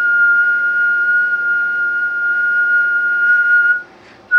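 One steady, high whistled note held for several seconds, breaking off briefly near the end and then resuming. It is the test tone that drives the CB transmitter during a power test into a dummy load.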